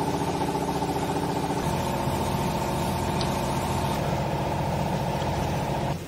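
Hydraulic baler's electric motor and pump running steadily, a loud hum that shifts in tone about a second and a half in and cuts off abruptly near the end.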